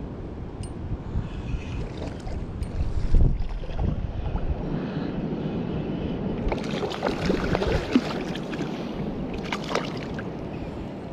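Wind rumbling on the microphone over lapping sea water, with a stretch of louder splashing and sloshing about six to eight seconds in and a shorter one near the end.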